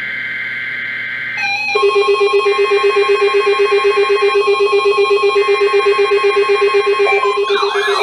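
Several NOAA weather radio receivers going off for a Required Weekly Test. The buzzing SAME digital header tones play in three bursts, and from about a second and a half in, the radios' alert beeps pulse rapidly at several pitches. Near the end one receiver starts a rising-and-falling siren-like warble.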